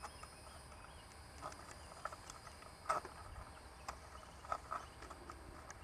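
Faint, irregular light clicks and taps of a plastic security light fixture being worked into place against its mounting plate by hand, the sharpest click about three seconds in.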